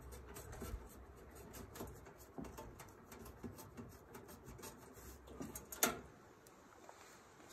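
Faint scrapes and small clicks of a stubby hand driver working a screw against sheet metal inside a dryer's lower cabinet, with one sharper click about six seconds in.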